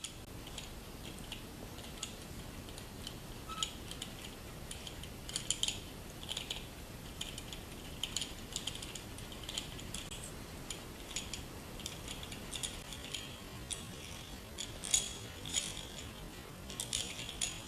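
Brass Meccano gears in a hand-turned differential model meshing as the wheels are rotated, giving irregular light metallic clicks, some in quick clusters.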